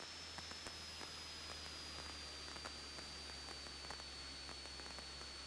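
Faint steady low hum and hiss on a light aircraft's cockpit intercom audio feed, with a few tiny clicks.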